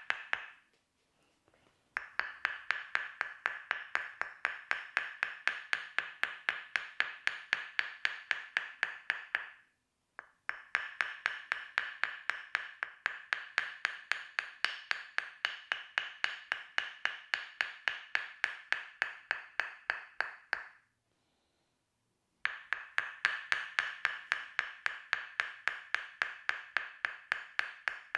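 Tok sen massage: a wooden mallet tapping rapidly and evenly on a wooden wedge, about five strikes a second, each a ringing wooden knock. The tapping starts about two seconds in and stops briefly twice, near the middle and about three-quarters through.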